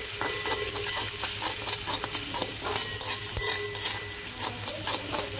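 Chopped ginger, a slit green chilli and cumin sizzling in hot oil in a kadai while a spatula stirs and scrapes them around the pan, with many small crackles.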